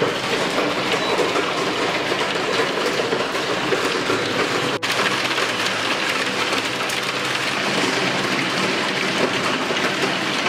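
Heavy hail falling, a dense, steady clatter of hailstones striking a skylight and the garden, with a brief break a little before the middle.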